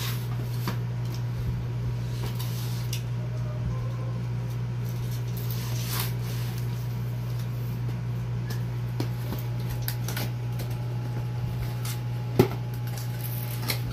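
Cardboard box being handled and its packing tape slit with a box cutter: scattered scrapes, taps and rustles, with one sharp click near the end. A steady low hum runs underneath.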